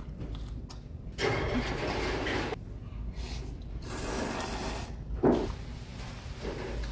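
A person slurping udon noodles from a bowl held to the mouth, in long noisy slurps, one early on and another about four seconds in, with a short sharp sound just after it.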